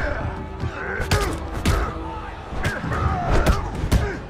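Movie fight sound effects: a rapid run of hard punch and kick impacts, about six in four seconds, with swishes and the fighters' grunts between them.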